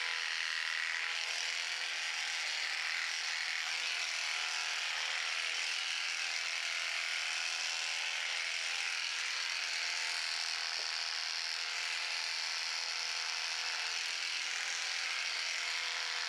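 Corded electric horse clippers running steadily as they clip a horse's coat, a constant buzz.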